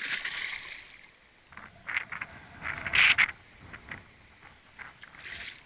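A large tararira (trahira) thrashing at the water's edge, splashing hard, the splashing dying away about a second in. Then a few short sharp knocks and scuffs, the loudest about three seconds in.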